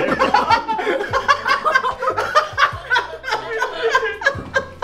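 Several people laughing and chuckling around a dinner table, mixed with snatches of talk.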